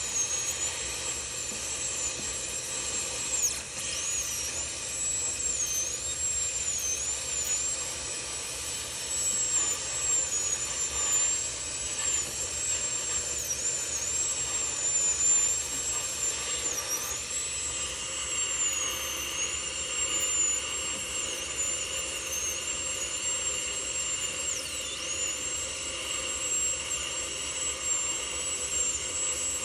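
A high-speed dental handpiece (air-turbine drill) runs with a steady high whine. Its pitch dips briefly again and again as the bur bears on the tooth, as it cuts away old filling and tooth structure.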